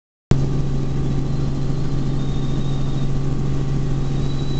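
Helicopter in flight: the engine and rotors give a steady, loud, unchanging drone with a strong low hum, cutting in just after the start.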